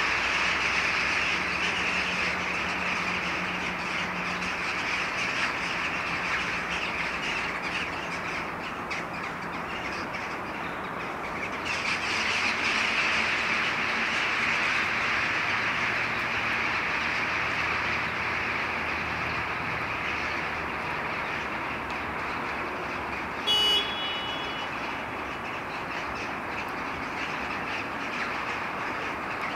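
A large flock of jackdaws calling together as they gather to roost, a dense unbroken chatter of many overlapping calls. A short high-pitched tone cuts in briefly about three-quarters of the way through.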